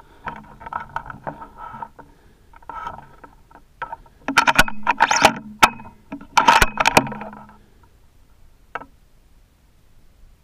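Handling noise from a hunting rifle picked up by its scope-mounted camera: irregular scrapes, rubbing and sharp knocks as the rifle is shifted and settled on a loose branch used as a rest. The noise is heaviest in the middle and dies away after about eight seconds.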